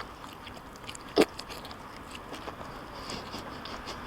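Someone chewing and biting into a mouthful of doner kebab meat close to the microphone: soft, wet mouth clicks, with one short, sharper sound about a second in.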